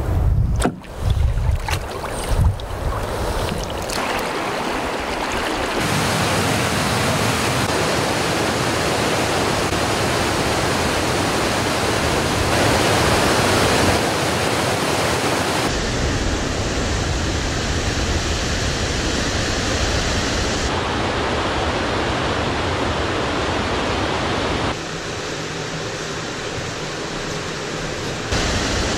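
Loud, steady rush of whitewater from river rapids and a waterfall. It changes tone abruptly several times as the shots cut. There are a few low thumps in the first seconds.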